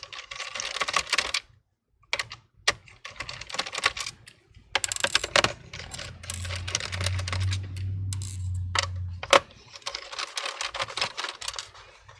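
Clicks, taps and rattles of a screwdriver working screws out of a laptop's plastic bottom case while the case is handled, with a steady low hum for a few seconds past the middle.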